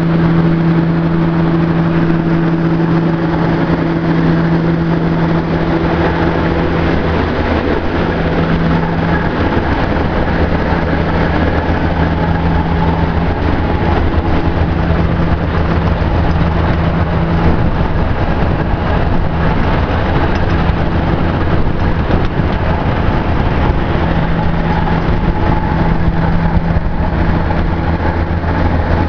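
BL-Pegson mobile screening plant running: a steady, loud diesel engine drone with a constant mechanical hum from the machine.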